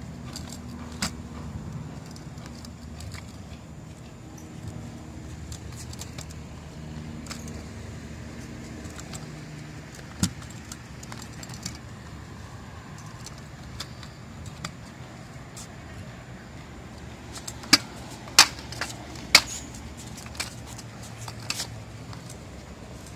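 A small two-wheeled kick scooter rolling over concrete, with a steady rumble and rattle. It gives a few sharp clacks as it knocks against the ground, the loudest three close together near the end.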